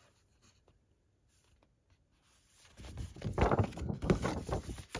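Folded paper poster being handled and folded up: rustling and crinkling paper, starting a little past halfway after a quiet start.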